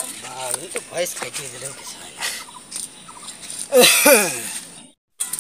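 Sharp cuts of a large blade chopping green chillies on a wooden board, with voices and poultry calling in the background; the loudest sound is a call about four seconds in.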